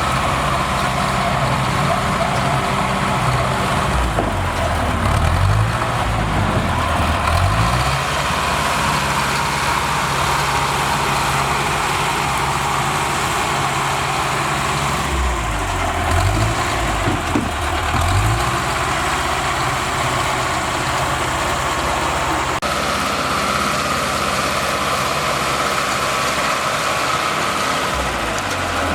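Bulldozer's heavy diesel engine running, its pitch rising and falling a few times as it works. The sound changes abruptly about two-thirds of the way through.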